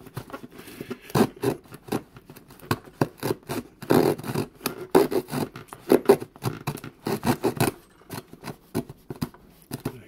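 Small folding wood saw of a Victorinox Swiss Army knife cutting through a block of wood with quick back-and-forth strokes, rasping in runs with brief pauses. The strokes thin out and fade over the last couple of seconds as the corner comes off.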